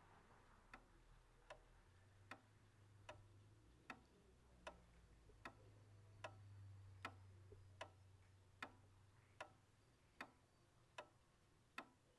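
Clock ticking steadily, a little faster than once a second, over a faint low hum.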